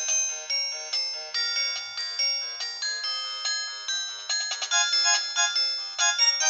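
Nokia 108 (RM-945) mobile phone playing a melodic ringtone: a continuous tune of short, quickly fading notes, several sounding together.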